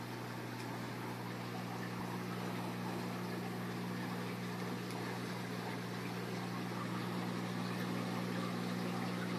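Aquarium air pump running with a steady low hum, under the fizzing hiss of air-stone bubbles rising through the tank.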